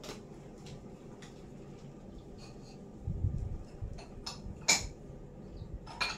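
A few light clicks and knocks over quiet household background, the sharpest about three-quarters of the way through, with a brief low rumble just before the middle.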